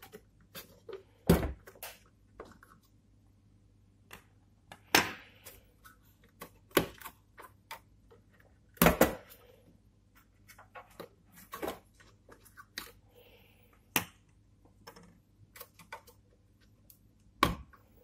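Plastic clicks and knocks as RAM slot latches are pressed open and memory modules handled and pulled from a desktop motherboard: about seven sharp clicks scattered among softer taps and rustles.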